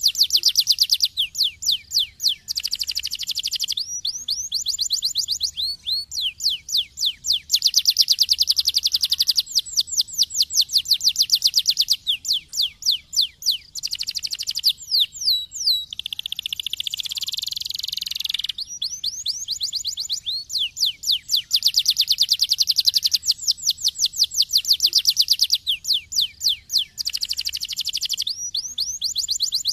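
Domestic canary singing a long, unbroken song made of fast trills of quickly repeated, high sweeping notes, switching to a new trill every second or two. About halfway through comes a denser, buzzy rolling phrase.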